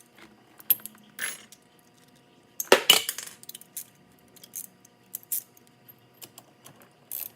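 Small metal hardware and tools clinking and rattling as they are handled, in scattered clicks with a louder clatter about three seconds in.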